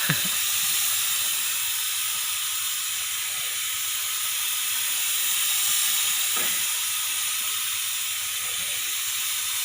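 Steady hiss of compressed air from a paint spray gun, running evenly without a break.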